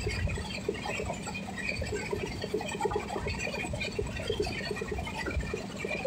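Train running along the track, heard from inside a carriage: a steady rumble of wheels on rail with many short, scattered squeaks and rattles over it.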